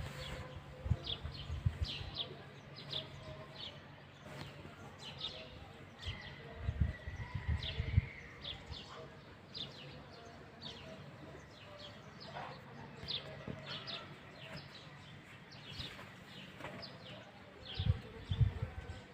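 Small birds chirping over and over, short falling chirps about one or two a second. Low thumps break in around seven seconds in and again near the end.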